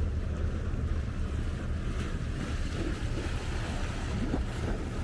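Wind buffeting the microphone in a steady low rumble, over the wash of choppy lake water against the waterfront.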